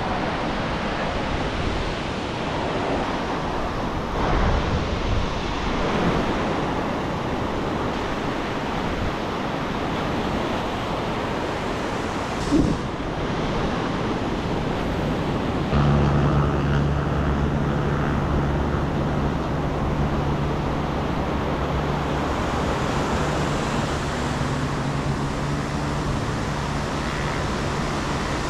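Ocean surf washing up the beach, with wind on the microphone. A short knock comes near the middle, and a low steady hum sets in just past halfway.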